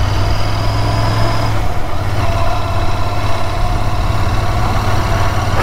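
Royal Enfield Continental GT650's 648 cc parallel-twin engine running steadily as the motorcycle is ridden along a road, with a strong low drone. The engine note eases slightly just under two seconds in.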